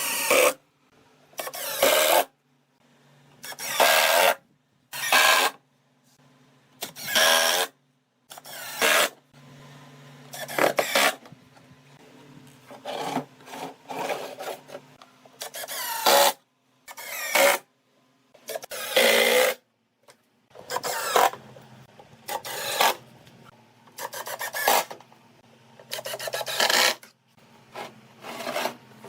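A hand tool rasping across wood in short, separate strokes, each under a second, with irregular pauses between them.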